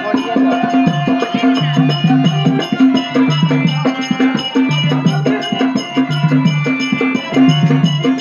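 Live Tamil folk-drama music: drums beating a fast, repeating rhythm of low pitched strokes and sharp clicks over steady held tones.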